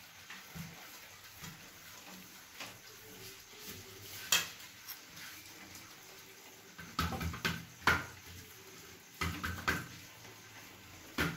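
Hands rolling a sticky date-and-nut log on a stainless steel plate: soft rubbing, broken by a few clicks and knocks of the plate. The sharpest knock comes about four seconds in, and a cluster of knocks follows in the second half.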